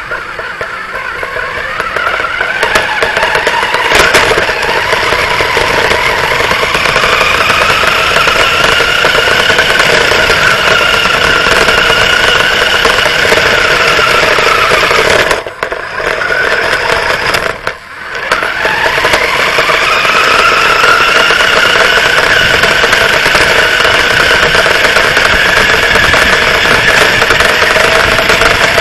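A radio-controlled car's motor running, heard from on board the car, its pitch climbing as the car speeds up. About halfway through the sound drops away briefly twice, then climbs again to a steady high running note.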